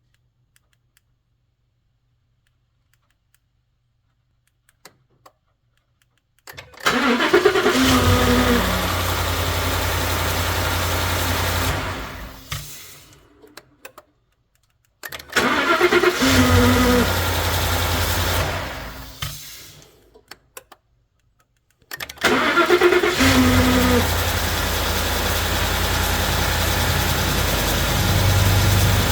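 Ford F-150's 5.0 V8 started from cold three times. Each time it cranks, catches with a rising whine and runs steadily for several seconds before being shut off and dying away, the last run ending near the end. The whine on cold start is the fault being recorded.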